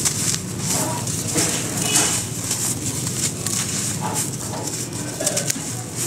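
Dry sand-cement chunks crushed and crumbled by hand, a steady gritty crunching and crackling as the powder pours down. Short animal calls sound now and then in the background.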